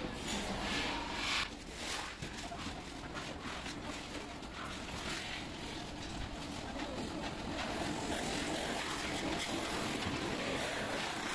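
Steel wheelbarrow loaded with loose sheet-metal offcuts being pushed, rattling with many small clanks and knocks as it rolls, over a steady workshop din.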